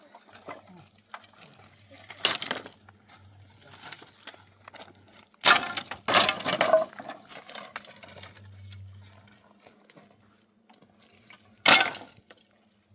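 A few separate sharp knocks: one about two seconds in, a loud cluster of knocks between about five and seven seconds, and a single loud knock near the end.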